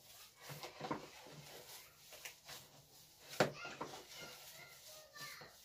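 Hands kneading a raw minced-meat köfte mixture in a plastic tub: irregular wet squishing and slapping, with one sharper knock about three and a half seconds in.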